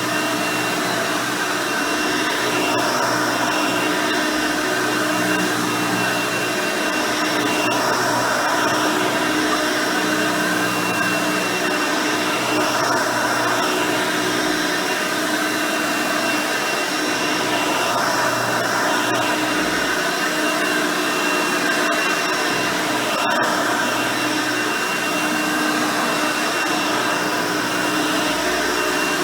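Hoover Elite 350 upright vacuum cleaner running steadily, its 5-amp motor and original nine-blade fan giving a constant whine with several fixed tones. The sound swells slightly every few seconds.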